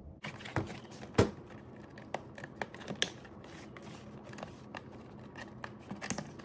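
Cardboard tumbler box with a plastic window being handled and its top flap worked open by hand: scattered taps, scrapes and clicks of fingers on card, the loudest a sharp knock about a second in.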